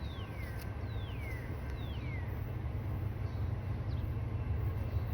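Low rumble of an approaching train, growing slowly louder. A bird gives three falling whistles in the first two seconds.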